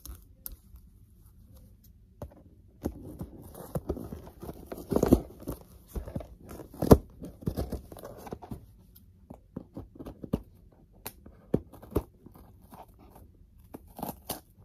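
Hands working at a cardboard toy box to get it open: irregular scraping, rubbing and sharp crunches of the cardboard, loudest around five and seven seconds in.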